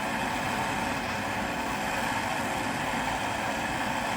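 Handheld gas torch burning with a steady, even hiss, heating a connecting rod's small end so that a press-fit wrist pin can be slid in.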